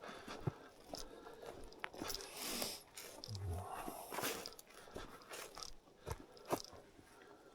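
Footsteps crunching on a wet path, with irregular clicks and short rustles.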